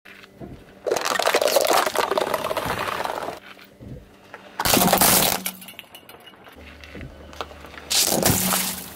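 A car tyre crushing objects one after another. Plastic cups crackle and crunch for about two seconds, then a glass light bulb shatters about five seconds in, and near the end a shorter crunch comes as the tyre presses a bag of beads.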